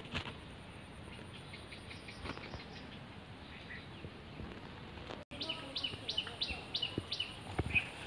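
Outdoor ambience with a bird calling: faint chirps early, then a run of about six quick downward-sweeping notes a little after the middle.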